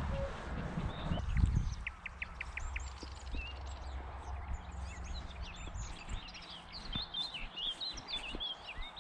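Several wild birds singing, with many short chirps and whistled notes overlapping and growing busier toward the end. A low rumble, like wind on the microphone, fills the first two seconds.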